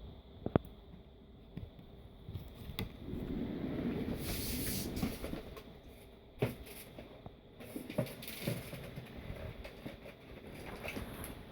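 Handling noises from a tablet and its charger cable: a sharp click about half a second in, a rustling scrape in the middle, then a few lighter clicks and taps.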